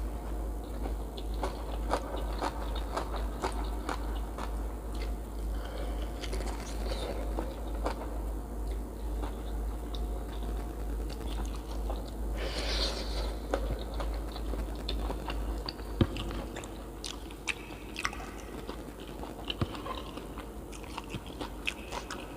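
A person chewing and biting food close to the microphone, with many small crunches and mouth clicks over a steady low hum.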